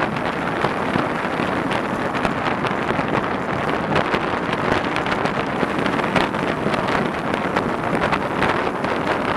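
Wind rushing over the action camera's microphone on a moving bicycle: a steady rushing noise with irregular buffeting.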